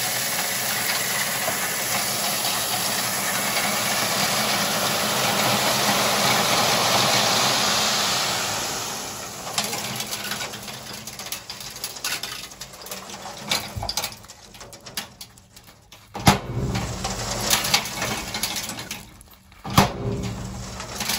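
A load of gravel sliding out of a tipping dump truck's bed, a steady rushing hiss over the truck's running engine, tapering off about nine seconds in. After that come scattered clatters of stones and a few sharp knocks.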